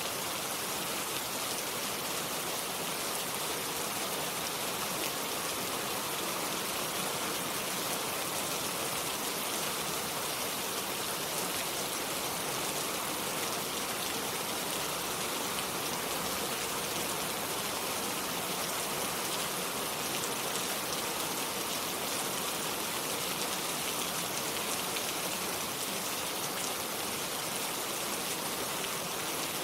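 Steady rain falling, a dense, even patter of drops without thunder.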